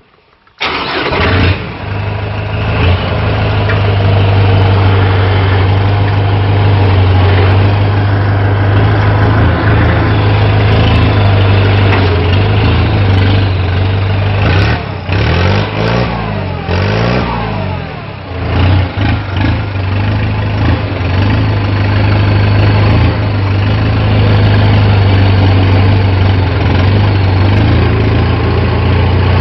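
Kubota M8540 tractor's four-cylinder diesel engine starting and running loudly through a modified, free-flowing exhaust pipe. About halfway through, the engine speed rises and falls twice before it settles back to a steady run.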